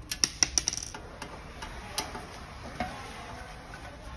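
Sharp metallic clicks of a screwdriver and small screw on a sheet-metal control-box housing: a quick run of five or six clicks within the first second, then three single clicks spread over the next two seconds.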